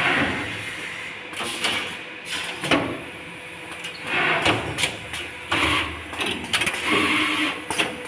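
Automatic ferrule-marking and lug-crimping machine for switchgear cable running: irregular sharp clicks and clacks from its pneumatic grippers and mechanisms, with several short hisses of air in the second half.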